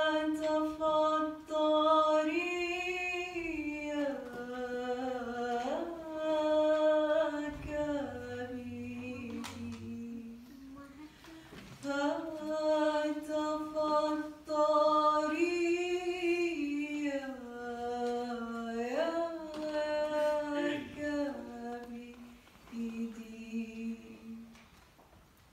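A single voice singing a slow melody unaccompanied, in two matching phrases of long held notes with a short pause between them.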